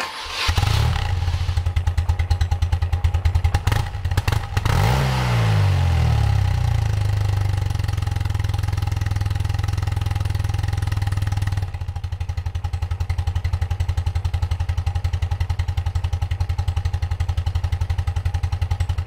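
Motorcycle boxer-twin engine idling with an even low beat, with a brief rev that rises and falls about five seconds in.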